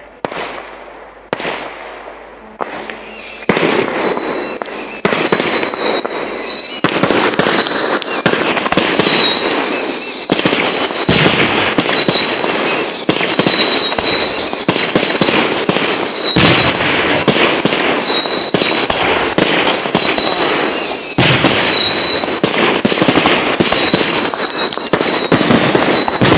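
Fireworks display: a few separate bangs, then from about three seconds in a dense, continuous barrage of shell bursts and crackling, with a high wavering whistle repeating above it.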